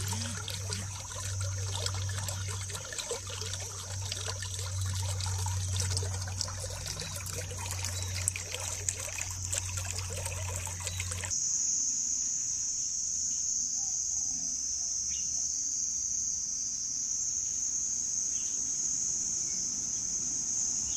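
Floodwater surging up from a submerged drain outlet in a ditch, churning, gurgling and splashing, with a steady low hum under it. About eleven seconds in it cuts off suddenly to a quieter scene with a steady high-pitched drone.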